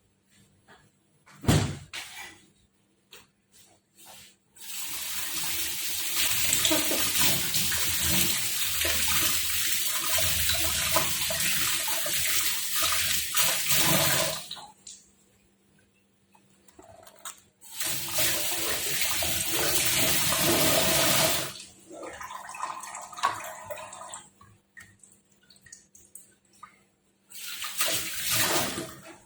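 Water running from a kitchen tap in three runs: a long one of about ten seconds, a shorter one of about four seconds, and a brief one near the end, with small handling clatter between. A sharp knock sounds about a second and a half in.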